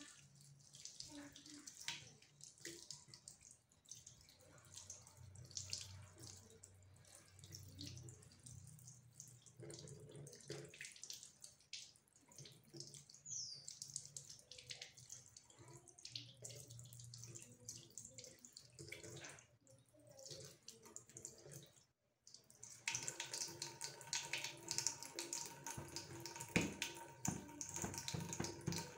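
Tap water running faintly into a sink as hands are washed, with small splashes and clicks. About 22 seconds in it cuts off abruptly, and a different faint sound follows: many small clicks over a steady hum.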